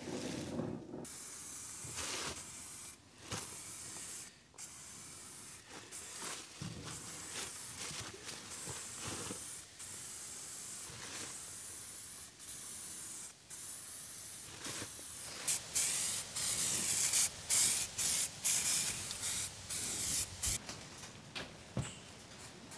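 Aerosol spray-paint can hissing in repeated bursts with short breaks as paint goes onto steel C-section beams, louder in quick spurts over the last several seconds.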